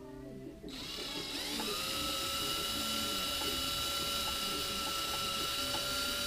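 Electric drill spinning up about a second in, then running at a steady high whine while drilling out rivets.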